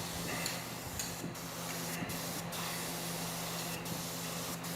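Insulating finish paint being sprayed onto a rewound generator exciter stator after varnish impregnation: a steady spray hiss with several brief breaks, over a steady low hum.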